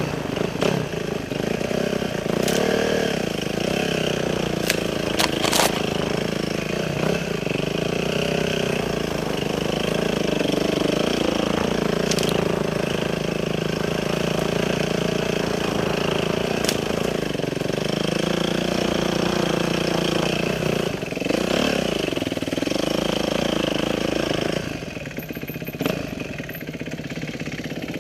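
Motorcycle engine running under way, its pitch rising and falling again and again as the throttle is opened and closed. About three and a half seconds before the end it drops back to a quieter, steady idle.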